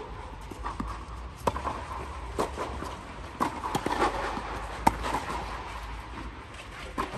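Tennis rally on a clay court: sharp pops of racket strings hitting a green-dot low-compression ball and the ball bouncing on the clay, about one a second, the loudest near five seconds in, with shuffling footsteps between the shots.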